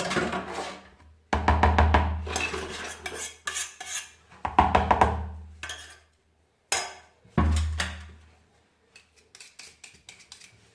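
Utensils clattering and scraping against a bowl as a cream mixture is worked, with three longer, louder rumbling bursts and lighter quick taps near the end.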